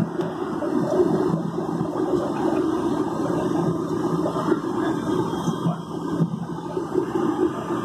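Jet airliner cabin noise during the climb after take-off: a steady rush of engine and airflow sound heard from inside the cabin.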